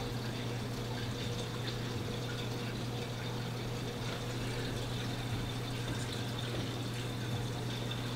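A steady low hum with a constant trickle of running water.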